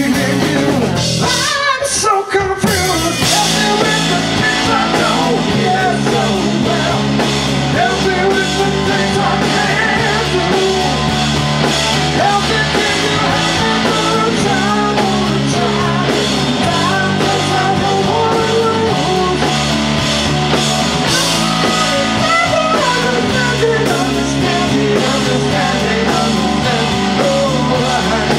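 Live rock band playing: electric guitar over bass and drums, with a male voice singing at times. The band drops out briefly about two seconds in, then the groove comes back in with a heavy bass line.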